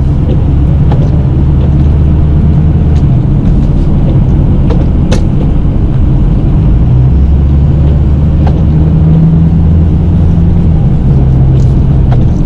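Snow-plow pickup truck's engine running as it pushes snow, a loud steady low drone whose pitch shifts a few times. A sharp click about five seconds in.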